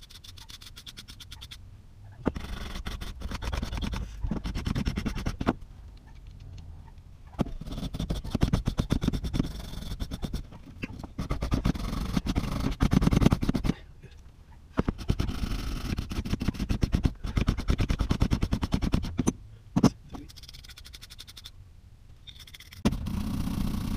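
Wire brush scrubbing the threads of a small plumbing fitting clean, in bouts of rapid back-and-forth strokes a few seconds long with short pauses between.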